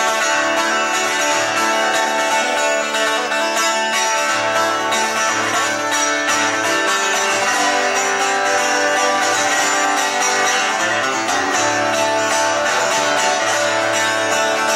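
Solo acoustic guitar playing an instrumental break, a steady unbroken run of notes with no singing.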